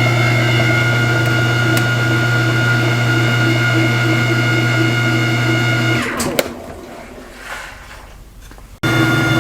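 Whirlpool direct-drive washing machine running with a constant high-pitched whine over a steady hum, the symptom that was traced to a worn tub support and basket drive. About six seconds in it winds down with the pitch falling, then it is running at full speed again near the end.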